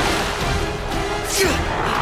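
Tense film score with a held note, and a shrill baboon cry falling in pitch about a second and a half in.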